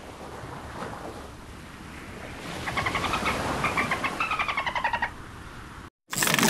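An animal's rasping, rapidly pulsed call lasting about two and a half seconds, over a steady hiss. The sound cuts off near the end, and a sudden loud noisy burst follows.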